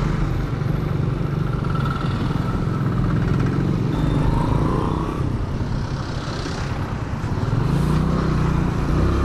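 A Yamaha Mio Sporty scooter's single-cylinder engine running steadily while riding in traffic, its note sagging a little midway and rising again near the end, with wind and road noise over the helmet-mounted camera.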